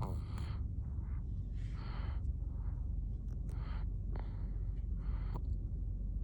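A sleeping one-year-old's noisy breathing: short, hissy breaths about every one and a half to two seconds, over a steady low rumble.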